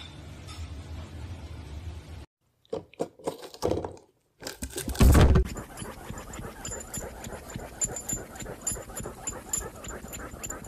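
Dog's claws scratching rapidly and irregularly at a fabric couch cushion as it digs into it, after a single loud thump about five seconds in.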